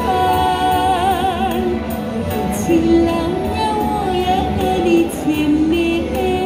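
A woman singing a slow song through a handheld microphone and street PA, holding notes with vibrato, over a backing track with a steady beat.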